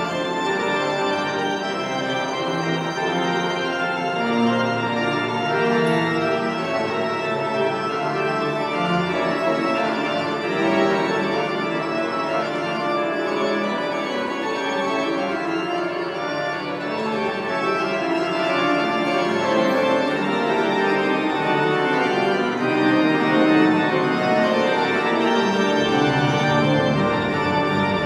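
Church pipe organ playing slow, sustained chords, with a deeper bass note coming in near the end.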